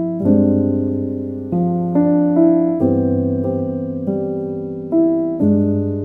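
Background music: slow piano chords, each struck and left to fade, with a new chord every second or so.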